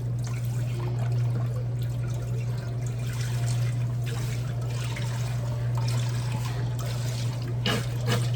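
Beef broth pouring into a cooking pot in a steady trickle, over a steady low hum.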